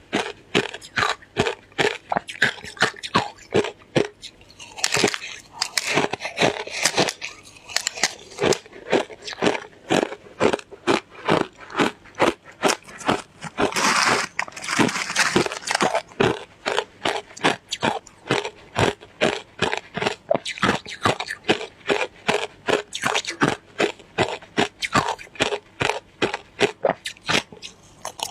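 Close, rapid crunching of shaved ice being bitten and chewed, about two to three crunches a second, with a longer, denser crackling stretch about halfway through.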